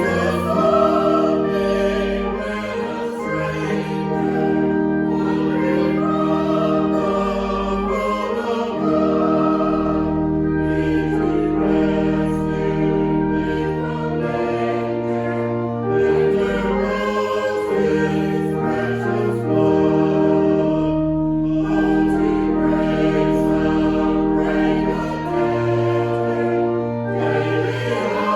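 A choir singing a hymn over held organ chords, with the bass line moving every second or two.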